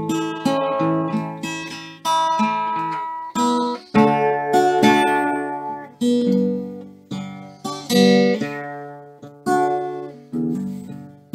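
Guitar being played: chords strummed about once a second, each left to ring and fade before the next.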